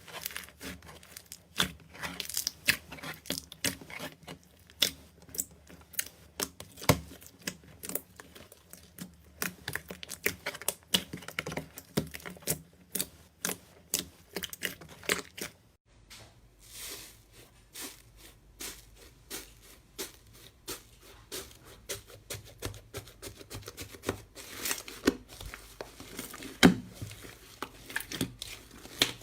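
Slime being squeezed and pressed by hand close to the microphone: rapid, irregular sticky crackles and pops. About halfway through, the texture changes and a low hum runs underneath.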